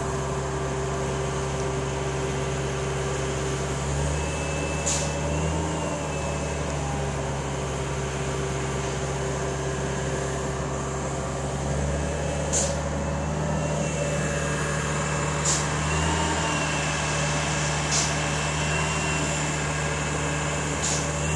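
Steady low hum of running machinery, with about five short sharp clicks a few seconds apart.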